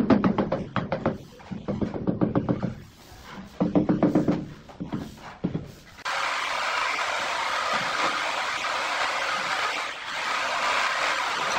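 Quick repeated tapping on a ceramic wall tile as it is bedded into the adhesive. About halfway through, a steady rushing noise starts suddenly and continues.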